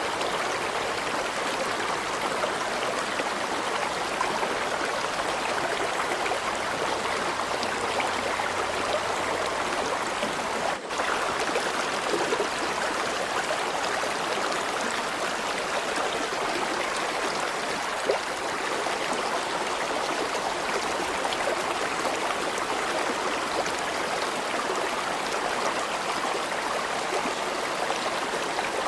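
River water flowing, a steady rushing with a brief dip about eleven seconds in.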